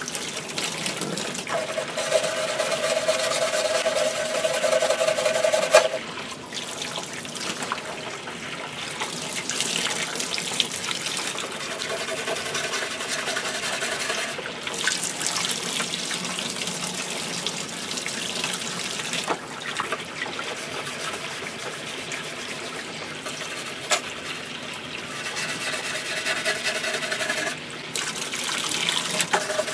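Faucet running scalding hot water into a sink, splashing over a Bakelite radio cabinet that is held and turned under the stream, with a couple of light knocks.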